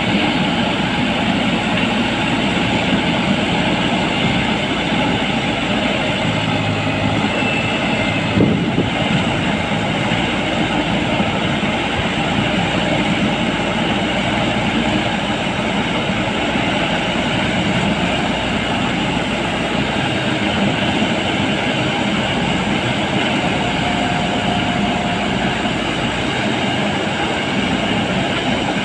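Diesel engine of a JCB 3DX backhoe loader running steadily, with a single knock about eight seconds in.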